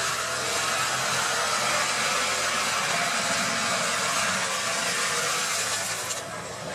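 Tractor-mounted AHWI forestry mulcher at work, its rotor grinding brush and wood debris over the tractor's engine: a steady dense whir that dips briefly near the end.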